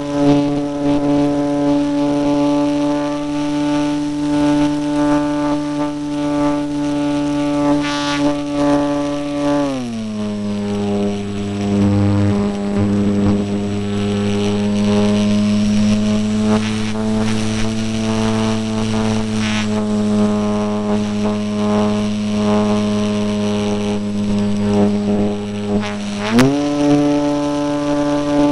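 Electric motor and propeller of an E-flite Apprentice RC airplane, picked up by a camera on its fuselage: a steady drone that drops in pitch about a third of the way through as the throttle is pulled back, then climbs again near the end as power comes back on.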